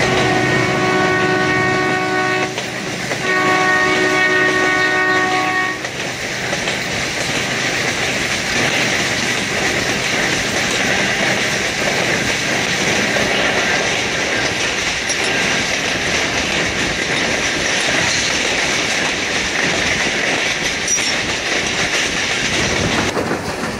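Passenger train's locomotive horn sounding two long blasts of about two and a half seconds each, with a short gap. After them comes the steady rumble and clatter of the train's wheels running along the track, heard from a carriage window.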